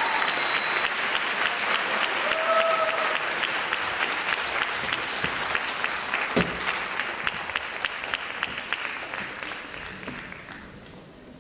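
Audience applauding after a dance performance, the clapping thinning and fading away over the last few seconds. A short call from the audience comes about two and a half seconds in, and a single thump about halfway through.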